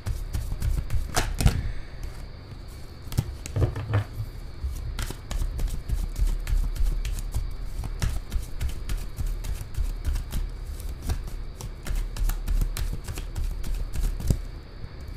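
A tarot deck being shuffled by hand: a running stream of quick card clicks and slaps with a few louder snaps, over a low steady hum.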